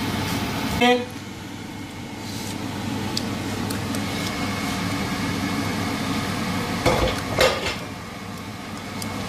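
Spatula stirring and scraping a thick, dry meat curry in a nonstick pot, with two louder knocks against the pot about seven seconds in, over a steady low hum.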